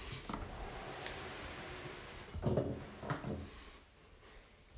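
Handling noise from a smartphone being held and set in place: rubbing against the microphone with a few knocks, the loudest two about two and a half and three seconds in.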